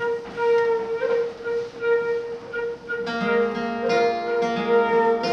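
Live acoustic instrumental music: a long held note under short melody notes, joined about three seconds in by an acoustic guitar playing a picked, repeating figure.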